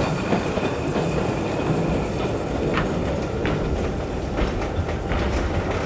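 A steam-hauled train running past, with steady rumble and rushing noise and the wheels clicking over rail joints several times.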